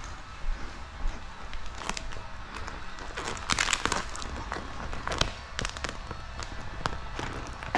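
Clear plastic paint protection film crackling and crinkling in irregular bursts as it is handled and stretched over the wet car body, with scattered sharp clicks. The densest crackling comes about halfway through.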